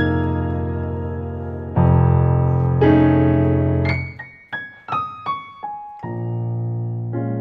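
Background piano music: gentle sustained chords over a low bass note, with a short run of single notes stepping downward in the middle before the chords return.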